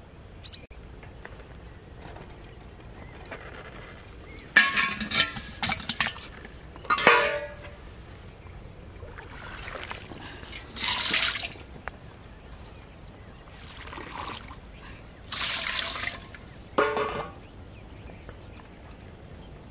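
Water splashing and pouring off a steel plate in several short spells, between sharp clinks and knocks of steel dishware.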